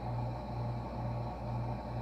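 A steady low mechanical hum that pulses about twice a second, over a constant deeper drone.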